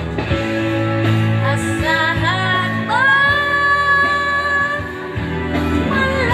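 A woman singing a slow song over guitar accompaniment, holding one long note in the middle.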